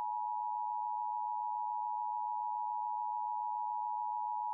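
Emergency Alert System attention tone: a single steady electronic tone a little under 1 kHz, held without a break. It is the alert signal that comes before a spoken weather warning.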